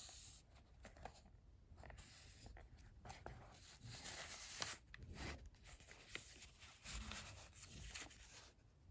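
Soft rustling and crinkling of paper as a Traveler's Notebook's paper inserts and a sticker sheet are handled and shifted, with small clicks and taps here and there.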